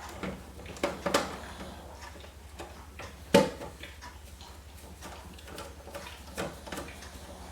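Screwdriver and metal handling while a PC power supply is screwed into the case: scattered clicks and small knocks, the sharpest knock a little over three seconds in, over a low steady hum.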